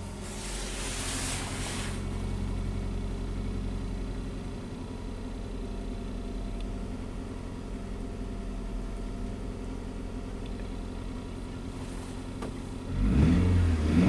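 2002 Toyota Highlander's four-cylinder engine, just started cold, running at a steady fast idle with no misfires showing, then revved up near the end. A brief hiss sounds in the first couple of seconds.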